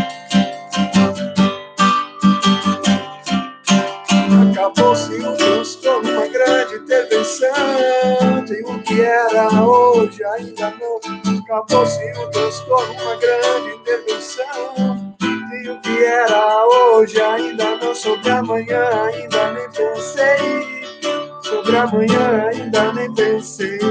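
Acoustic guitar strummed and picked, with a man singing along from about five seconds in.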